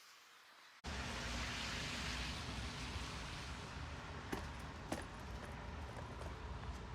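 Wind buffeting the microphone outdoors: a steady rushing noise with heavy low rumble that starts abruptly about a second in, with a few faint clicks later on.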